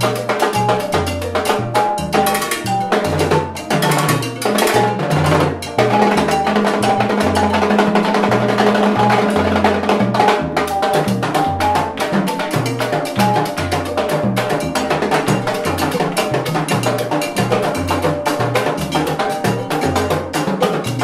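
Live salsa band: a timbales solo of fast stick strikes on the metal drum shells, heads, bell and cymbal over congas and a repeating upright-bass tumbao, with a held low note about midway.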